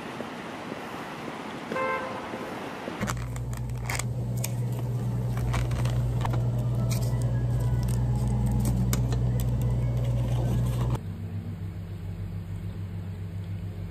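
Outdoor street noise with a short car horn toot near the start. Then a steady low hum and the light clicks of plastic food containers being handled.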